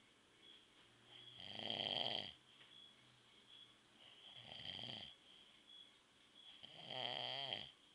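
A sleeping man snoring: three snores about two and a half to three seconds apart, the middle one weaker.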